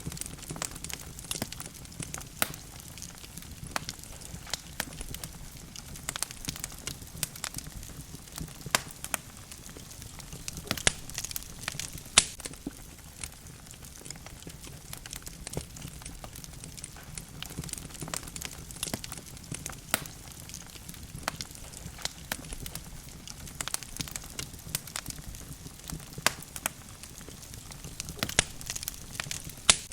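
Wood fire in a fireplace, burning logs crackling and popping at irregular intervals over a low, steady rumble of flame.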